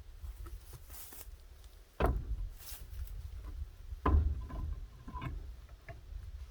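Two sharp knocks about two seconds apart, the second the loudest, followed by a few lighter clicks and clanks over a low rumble.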